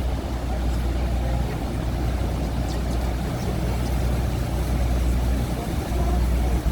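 A tour boat's engine running with a steady low rumble, with wind and water noise over it.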